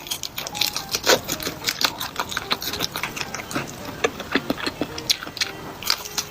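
A quick, irregular run of small clicks and crackles, several a second, with a few short ringing clinks among them.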